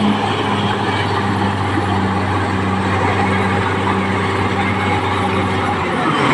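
Caterpillar D6R crawler bulldozer's diesel engine running steadily.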